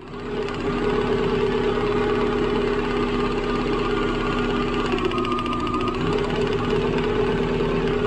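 Petrol engine running steadily under the hood, with a fast, even ticking knock over its steady hum.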